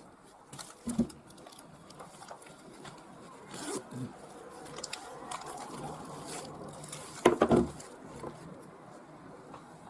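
Handling sounds: small objects knocked and rubbed together, with the loudest couple of knocks about seven and a half seconds in.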